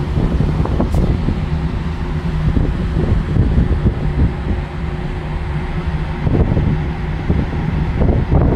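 Ferry's engines running with a steady low drone, mixed with wind buffeting the microphone.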